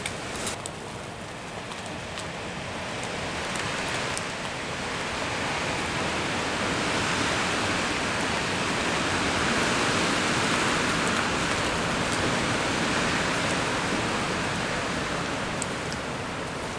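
Storm of heavy rain and gusting wind: a steady rushing noise that swells in the middle and eases a little near the end.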